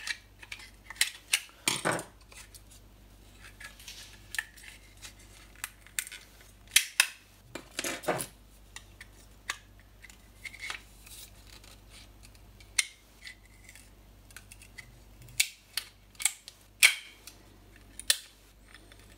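A thin metal screwdriver prying and scraping at the white plastic housing of an IKEA LEDARE LED bulb, with irregular sharp clicks and short scrapes as pieces of the plastic crack off.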